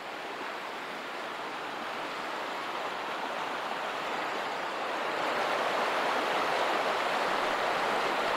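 Mountain creek rushing over rocks: a steady wash of running water that grows louder about halfway through.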